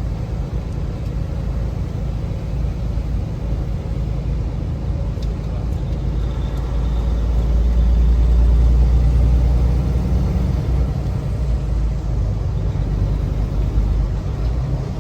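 Car driving along: a steady low engine and road rumble that grows louder for a few seconds around the middle.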